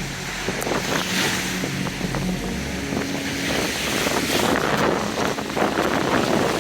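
Water waves and wind buffeting the microphone, a rough, uneven rushing noise, with a faint low steady hum underneath in the first half.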